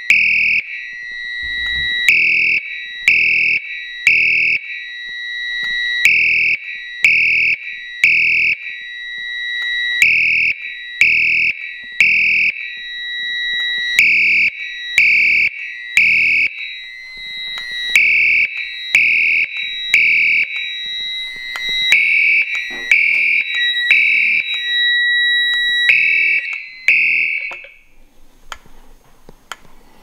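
Potter SH-120 fire alarm horn sounding the temporal-3 evacuation pattern, three short high-pitched blasts then a pause, over and over; the alarm was set off by a smoke detector tested with canned smoke. It stops near the end.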